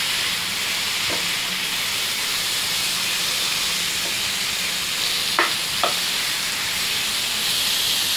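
Raw chicken pieces sizzling steadily in hot oil and masala as they are stirred in the pan, with two brief knocks a little past halfway.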